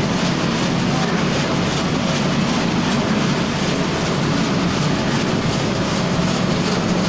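Red chilli powder lump-breaker and sieving machine running steadily, a loud constant low hum with a dense mechanical clatter.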